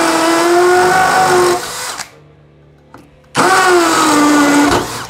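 Bosch GSB 185-LI 18 V cordless combi drill in hammer mode, drilling into masonry with an 8 mm bit. A loud run of motor whine and hammering stops about a second and a half in. A second run of just over a second follows near the end, its pitch sagging as the bit bites.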